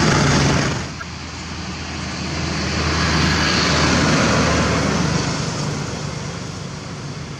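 Heavy diesel self-loader trucks running as they pass close. The sound drops suddenly about a second in, then builds as another truck approaches and passes, and fades near the end.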